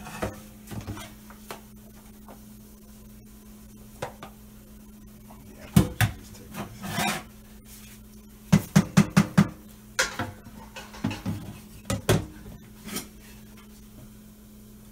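Cooking utensils knocking and scraping against a pan of pasta and sauce: irregular sharp clanks, with a quick run of about five knocks just past the middle, over a low steady hum.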